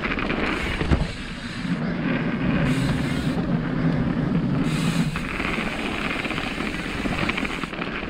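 Mountain bike riding fast down a dirt trail: a steady rush of tyres rolling over the ground, mixed with wind on the microphone, and a single knock about a second in.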